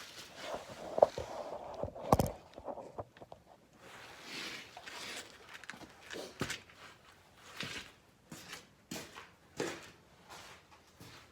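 Irregular knocks, clicks and rustling from tools and parts being handled during brake work, with a sharp knock about a second in and a louder one at about two seconds.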